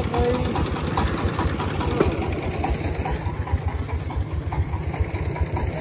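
Small farm-vehicle diesel engine idling steadily with a rapid, even firing beat, and one sharp knock about two seconds in.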